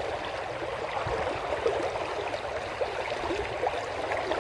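A flood-swollen river's fast current rushing over rocks, a steady wash of water with many small gurgles.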